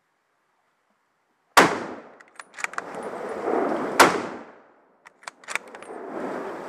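Two shots from a hunting gun, about two and a half seconds apart, each sharp crack trailing off in an echo, fired at a charging wild boar. Short clicks and rustling of brush between and after the shots.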